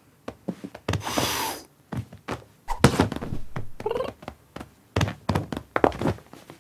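Cartoon cat sound effects: a run of soft thumps and taps of paws landing and scrambling on a sofa, a hiss about a second in, and a short cat mew about four seconds in.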